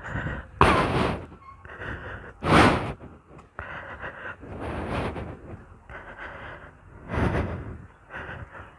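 Repeated breathy rushes of air on the phone's microphone, roughly one a second. The strongest come about a second in, a little before the middle, and near the end.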